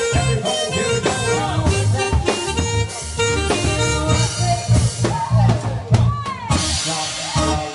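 Live band playing dance music: a drum kit beat with a strong bass and keyboard, with a sweeping glide about six seconds in followed by a wash of high hiss near the end.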